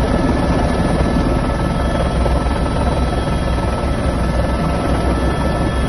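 Police helicopter running steadily, with a fast, even beat of the rotor blades under a constant high turbine whine.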